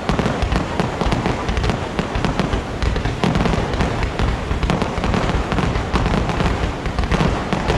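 Fireworks display: a continuous barrage of many overlapping firework bursts and crackles, going off in rapid succession without a break.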